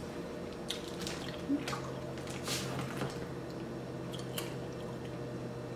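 Soft mouth sounds of drinking and eating: sips and swallows from a soda can and chewing, with a few small wet clicks, over a faint steady hum.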